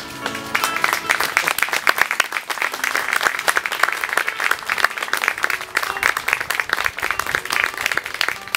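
A crowd applauding, many hands clapping. It starts as the last notes of a song die away and fills out within the first second.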